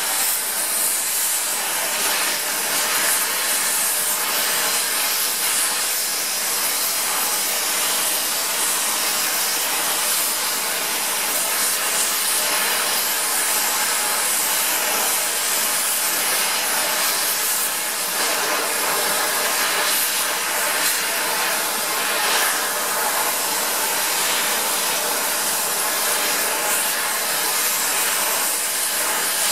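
Oxy torch flame hissing steadily as it heats a steel axle collar to red hot for a shrink fit onto the half shaft.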